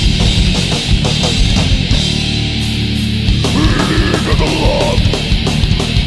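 Thrash/hardcore band recording: distorted electric guitars, bass and fast drums played hard. About two seconds in, the fast hits give way to a held, ringing chord, and the full band comes back in about a second and a half later.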